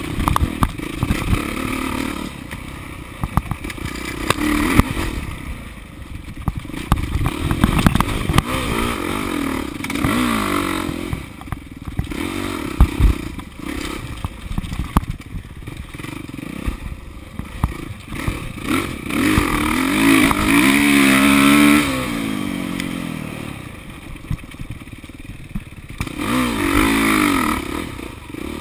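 Off-road dirt bike engine revving up and down as it is ridden hard through the turns, the pitch climbing and falling again and again, highest about two-thirds of the way through. Clatter and knocks from the bike over rough ground run through it.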